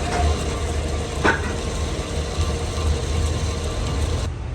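Steady low hum of running workshop machinery, with a single sharp click about a second in.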